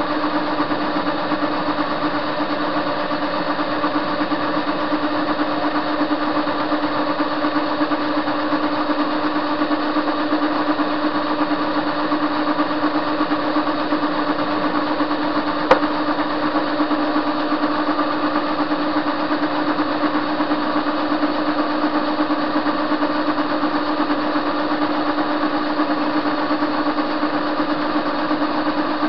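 Soviet-era TV-16 lathe running steadily while turning a metal bar, its motor and gearing giving an even hum. One sharp click about halfway through.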